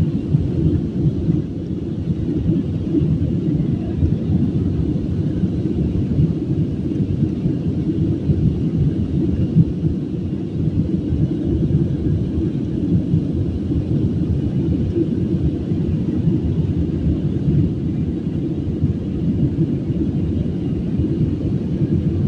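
Steady cabin rumble of an Airbus A320-family jet climbing after takeoff: engine and airflow noise heard from a window seat.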